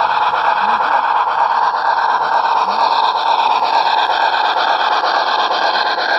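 Model C&O K-2 2-8-2 steam locomotive and its freight cars rolling past on model track, a steady running noise of wheels on rail and motor.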